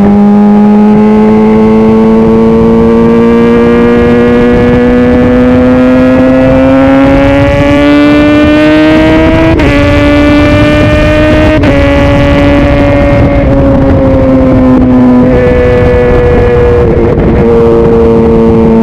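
Honda CBR600RR's inline-four engine under way, its note rising steadily for about ten seconds. It breaks sharply twice about halfway through, then holds and slowly drops as the revs fall off.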